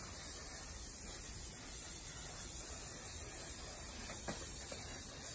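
Aerosol spray adhesive hissing steadily from the can as a light, even coat is sprayed onto the backs of sheets of paper.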